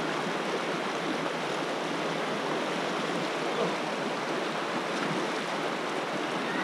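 Mountain stream rushing over rocks: a steady, even wash of running water.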